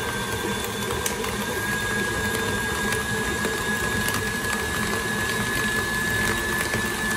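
KitchenAid stand mixer running at high speed, its wire whip beating cream cheese and sweetener in a glass bowl: a steady motor hum with a whine that rises slightly about a second and a half in. The motor is switched off right at the end.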